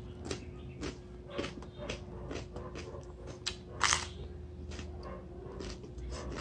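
Mouth noises of eating raw bitter melon (ampalaya): crisp crunching bites and chewing in irregular strokes, with the loudest crunch about four seconds in.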